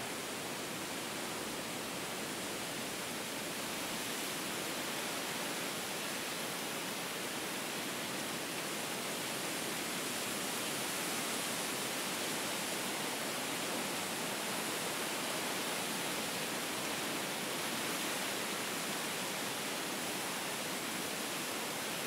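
Steady wind ambience: an even rushing hiss that holds at one level, with no gusts or bird calls.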